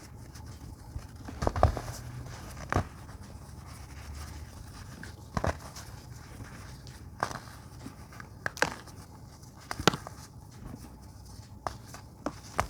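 Chunks of blue-dyed baking soda crumbled by hand: short, sharp, dry crunches at irregular spacing, roughly one every second or two, over a faint low hum.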